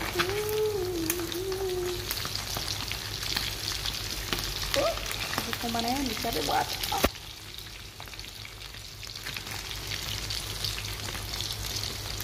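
Meat pieces deep-frying in hot oil in a pan, a steady crackling sizzle with many small pops. About seven seconds in, a sharp click, after which the sizzle is quieter.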